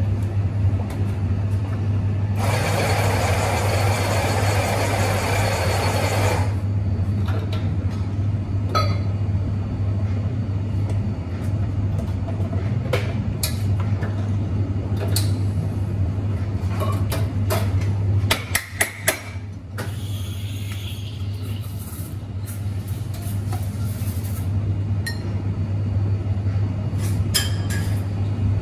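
Cafe espresso-bar work: the Synesso MVP Hydra's steam wand hisses for about four seconds a few seconds in, over a steady low hum. Scattered clinks and knocks of cups and coffee gear follow, with a quick run of sharp clicks about two-thirds through.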